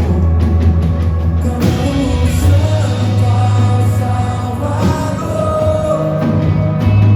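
Worship band music with singing: a full band with a steady bass line under held sung notes.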